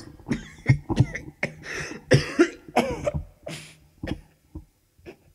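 A man's coughing fit into a handkerchief: a run of harsh coughs that weaken and die away over about four seconds, with a last small cough or two near the end.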